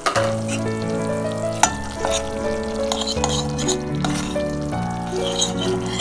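Background music of held, gently changing notes over food sizzling in a pan as it is stirred, with a couple of sharp clicks of a utensil against the pan.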